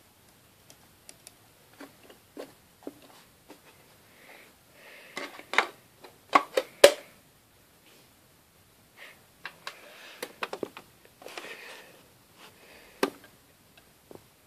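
Plastic clicks, taps and rustling from a CD being handled and put into a disc player. The sharpest clicks come about six to seven seconds in, with another near the end.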